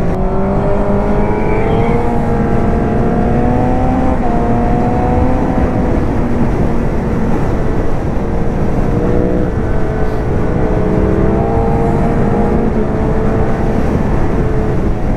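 Honda CBR1000RR inline-four sportbike engine pulling hard under load, its pitch climbing for about four seconds, easing, then climbing again in the second half, over a steady rush of wind on the helmet microphone.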